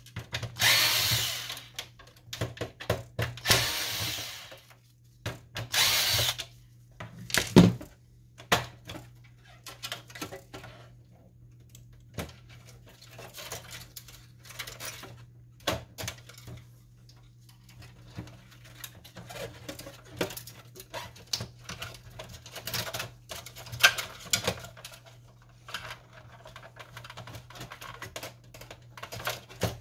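Electric screwdriver spinning in three short bursts, backing screws out of an inkjet printer's frame. After that, a sharp click and a run of small plastic clicks and rattles as parts and ribbon cables are handled.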